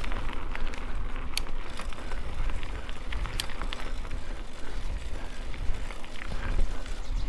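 Mountain bike being ridden along a trail: wind rumbling on the microphone over steady tyre noise, with scattered clicks and rattles from the bike.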